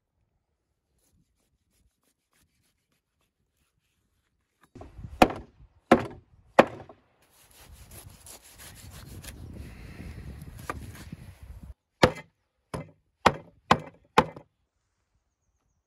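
Butchering beef ribs on a wooden cutting board. About five seconds in come three heavy chopping blows, then a few seconds of a knife slicing and scraping along the rib bones. The section ends with five quick cleaver chops about half a second apart.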